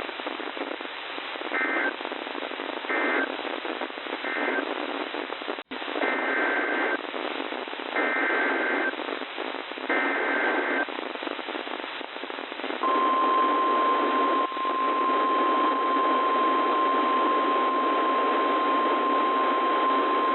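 NOAA Weather Radio broadcast over radio static. First come three short bursts of SAME data buzz, the end-of-message code closing the previous warning. Then three longer SAME header bursts encode the next warning, and about 13 s in the steady 1050 Hz Weather Radio warning alarm tone starts and holds for about nine seconds.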